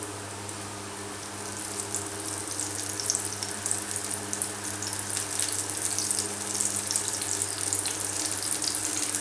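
Battered chicken pieces sizzling and crackling in hot oil in a frying pan; the crackle builds up about a second and a half in and stays busy, over a steady low hum.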